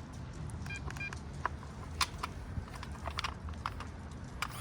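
Scattered small clicks and taps from handling a battery-powered keyless entry door lock just after its four AA batteries go in, with two short high beeps just under a second in.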